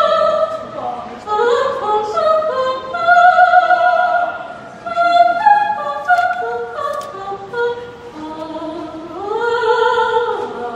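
Operatic soprano singing a lyrical aria live over a small classical ensemble. It comes in several phrases and ends on a long held note with vibrato about nine to ten seconds in.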